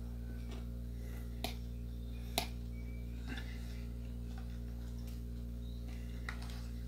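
Someone eating with a fork from a plastic bowl: two sharp clicks about a second apart and a few fainter ticks of the fork on bowl and teeth, with faint chewing, over a steady low hum.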